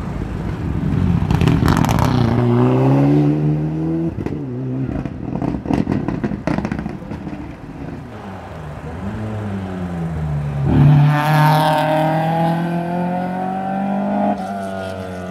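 Rally car engine revving hard as the car comes in, then a run of sharp cracks and pops from the exhaust as it slows for the junction. It then accelerates away, the engine pitch climbing, with a gear change about a second before the end.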